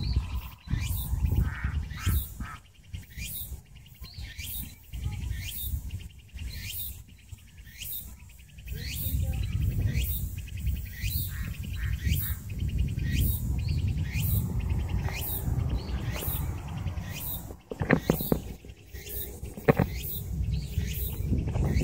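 A bird calling over and over with short rising chirps, at roughly one to two a second, over a low wind rumble on the microphone.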